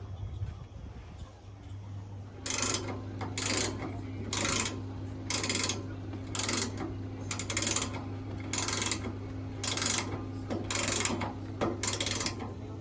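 Rhythmic ratcheting strokes, about one a second, from a tool being worked at the motorhome's wheel during a tyre change, starting a couple of seconds in, over a steady low hum.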